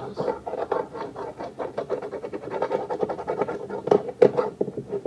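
Slime being stirred and scraped in a container with a spoon or fork: a rapid, uneven run of clicks and scrapes as the glue-and-borax mixture pulls away from the sides.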